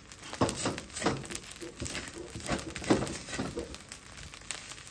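Wooden spatula scraping and turning fried rice in a black wok: irregular scrapes and knocks, the loudest about three seconds in, with the rice sizzling underneath.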